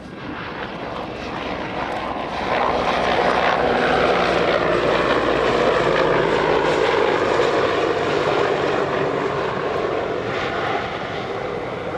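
Sikorsky CH-53G heavy transport helicopter making a close fly-by, its twin turboshaft engines and rotors loud and steady. The noise builds over the first couple of seconds, holds, then eases off near the end.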